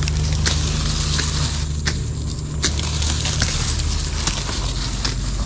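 Brush being cleared with a parang: irregular sharp cracks and snaps of cut branches and twigs, about one or two a second, over a steady low rumble and a steady high hiss.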